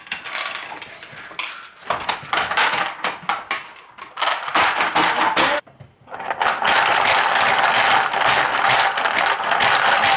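Hungry Hungry Hippos game: plastic hippo heads snapping forward as their levers are pressed over and over, clacking and rattling marbles across the plastic board. Scattered clicks and marble rattles at first, then after a brief pause about halfway through, a continuous rapid clatter as all the hippos are worked at once.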